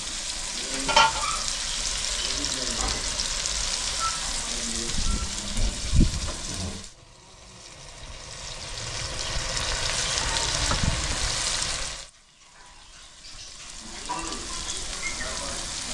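Onions frying in ghee in a steel karahi over a wood-fired clay stove, a steady sizzle. The sizzle drops away sharply twice and builds back, with a couple of knocks early on and about six seconds in.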